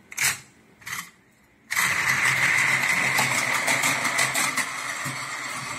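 Two short clicks, then about two seconds in a battery-powered Plarail toy train switches on and runs: a steady whirring motor whine with the rattle of its wheels on the plastic track.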